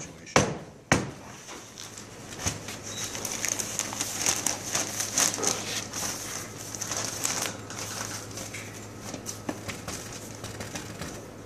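Newspaper sheets rustling and crinkling as they are spread and smoothed by hand over a clay slab, after two sharp knocks in the first second as the wooden board is set on the table.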